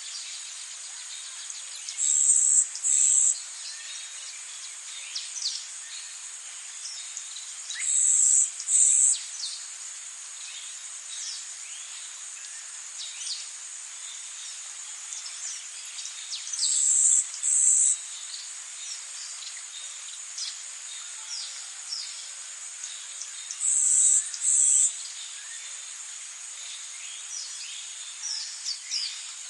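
Forest ambience: a steady high-pitched insect drone with many short bird chirps over it, and a louder high call in two quick bursts that comes back about every seven seconds.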